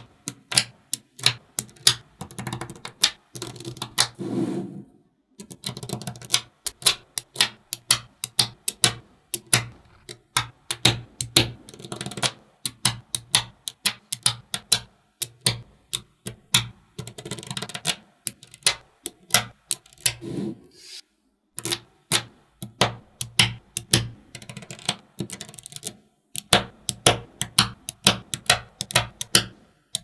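Small magnetic balls clicking as they snap onto a block of the same balls, in rapid irregular runs of several sharp clicks a second with a few brief pauses.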